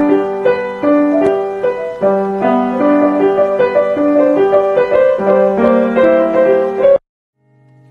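Piano playing a melody over a sustained bass line, cutting off suddenly about seven seconds in.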